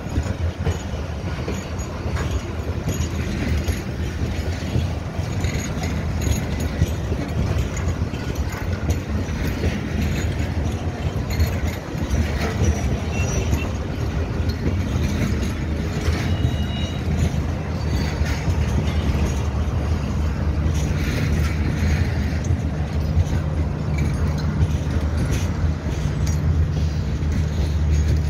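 Pakistan Railways passenger coaches of the Jaffar Express rolling slowly past as the train pulls out, a steady rumble of wheels on the rails with scattered clicks and knocks. A low hum grows stronger near the end.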